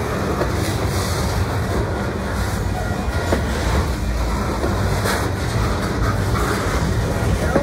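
Freight train boxcars rolling past close by: the steady noise of steel wheels running on the rails, with a couple of sharper clicks.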